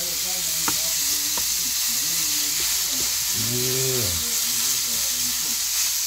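Ground sausage sizzling on an electric multi-cooker's grill plate as a spatula stirs and breaks it up, with two light spatula clicks in the first second and a half. A short low hum sounds a little past halfway.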